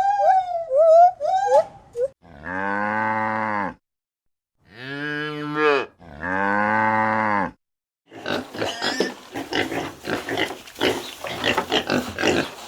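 Short gliding whistle-like chirps for about two seconds, then cattle mooing three times, each moo over a second long and cut off abruptly. From about eight seconds in comes a dense run of rapid pig grunting and snuffling.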